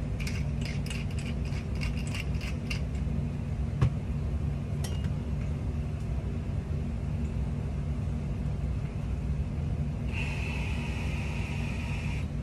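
Steady low hum of a commercial kitchen, with the quick crunchy clicks of a hand pepper mill being twisted for about the first three seconds. A sharp knock comes about four seconds in, and a steady high hiss near the end.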